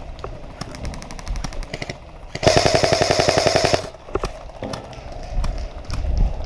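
Airsoft rifle firing on full auto. A quieter rapid burst starts about half a second in and lasts over a second. A loud burst of rapid shots follows about two and a half seconds in, lasting just over a second, then a few scattered single clicks.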